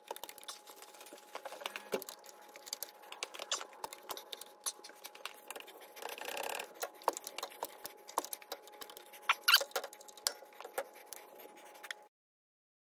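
Ratchet straps being cranked to draw the Pinzgauer's split axle half back onto the differential housing: irregular small clicks and scrapes from the ratchets and metal parts, with a faint steady hum underneath. The sound cuts off abruptly near the end.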